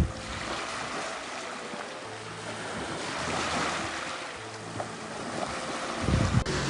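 Sea surf washing onto a shore, a steady rush that swells and eases, with wind buffeting the microphone in low gusts at the start and near the end.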